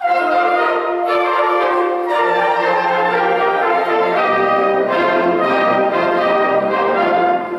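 Wind band playing, brass to the fore in full held chords; the music starts abruptly and drops back just before the end.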